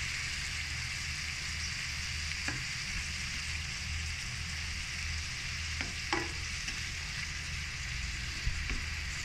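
Whole vannamei (whiteleg) shrimp with garlic sizzling steadily as they fry in a metal pan. A few light clicks of a spatula against the pan come through.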